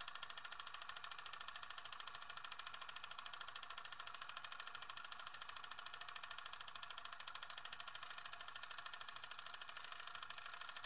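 Film projector running: a fast, even mechanical clatter with hiss, mostly high-pitched, unchanged across the shot change.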